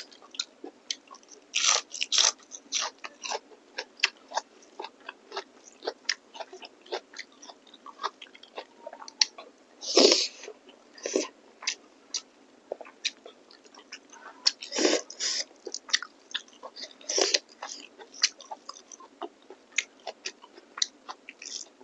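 Close-miked chewing and biting of a person eating, with many small wet clicks and smacks and a few louder bites.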